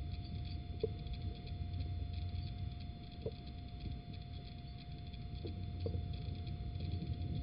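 Steady low hum and a thin steady electrical tone from a nest-box camera's microphone, with faint ticking and four faint, brief squeaks spread through it.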